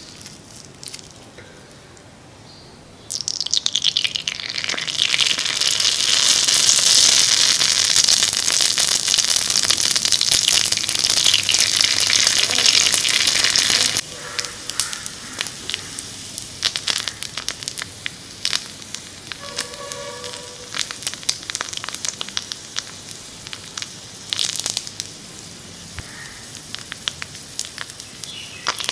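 Hot oil sizzling in a miniature wok as jalebi batter fries. A loud hiss swells about three seconds in and stops abruptly midway, then lighter crackling and popping.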